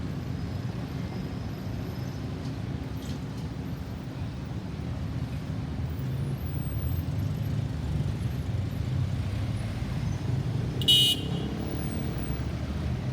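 Steady rumble of road traffic, with one short, sharp vehicle horn toot about eleven seconds in.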